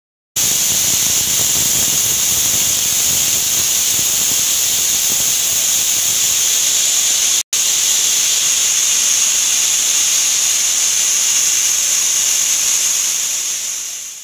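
Stovetop pressure cooker whistling: a loud, steady, high-pitched jet of steam hissing past the lifted weight valve, the sign that the cooker has come up to pressure. The sound drops out for an instant about halfway and then carries on.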